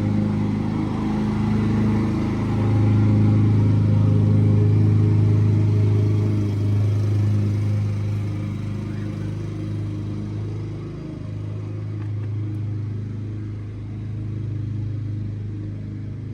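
An engine or motor running steadily with a low hum, swelling a little about two seconds in and easing off from about six seconds.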